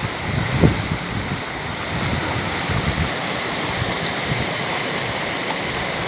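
Rushing water of a small cascade pouring over rock into a mountain stream, a steady hiss. Low gusts of wind buffet the microphone through the first few seconds.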